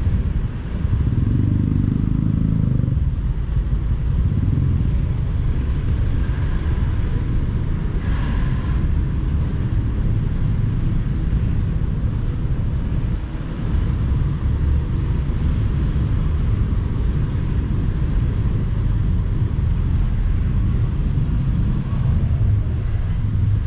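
Honda motorcycle's engine running with road noise as it rides slowly through traffic, with a brief pitched rise in the engine sound a second or two in.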